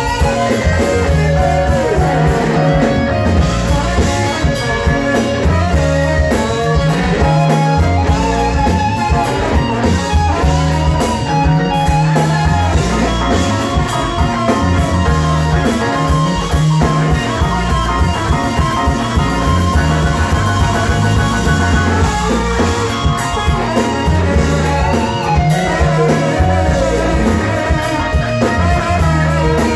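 A live blues-rock band playing loudly: electric guitar and trombone played together over bass guitar and drums, with a steady repeating bass line.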